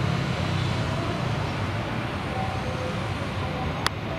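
Steady low rumble of distant engines across an airfield, with one sharp click near the end.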